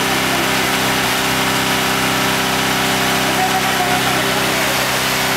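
Small engine of a hydraulic rescue-tool power unit running steadily at constant speed, keeping the hydraulic tool on its hose pressurised.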